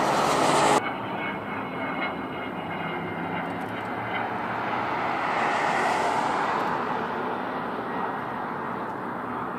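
Douglas Skyraider's big radial engine running loud on a low pass, cut off abruptly under a second in. A light twin-jet aircraft follows on approach with its gear down: the jet engines' roar and whine swell to a peak about six seconds in, then fade as it passes.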